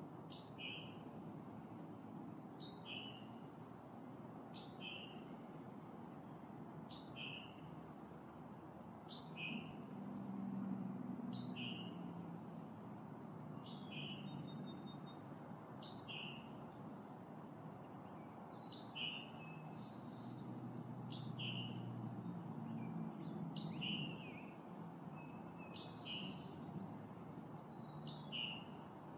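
A small bird calling a short, high, falling chirp over and over, about once every two seconds. Beneath it a low rumble swells twice.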